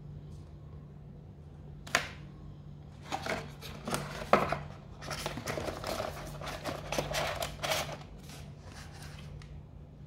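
Handling of the packaging during an unboxing: a sharp tap about two seconds in, then several seconds of paper and cardboard rustling and scraping with light knocks.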